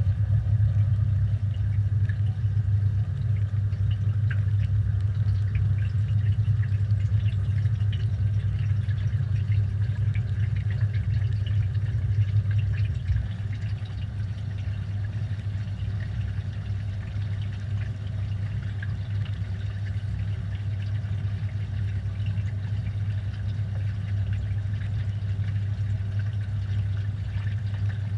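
Front-loading washing machine running mid-cycle, heard from inside the machine: a steady low motor hum with water and suds swishing. The hum drops a little in level about halfway through.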